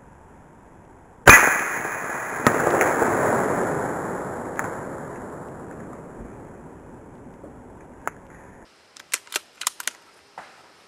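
A single loud gunshot about a second in, followed by a long rolling echo that fades away over several seconds, with a second sharp crack soon after the shot. A few faint clicks come near the end.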